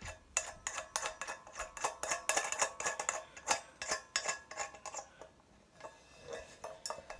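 Metal drum hardware clicking and clinking as hi-hat cymbal parts are handled: a rapid run of sharp metallic clicks for about five seconds, then a few scattered ones near the end.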